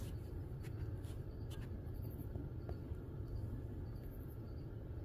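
Outdoor field ambience: a steady low rumble with a few faint soft clicks in the first couple of seconds and faint insect chirping, likely crickets.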